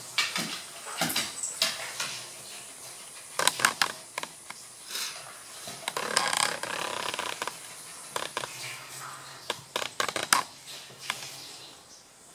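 Dogs playing and moving on a polished wooden floor: clicks and scrabbles of their claws on the boards, with scuffles and bumps. A denser burst of rapid scratching comes about six seconds in.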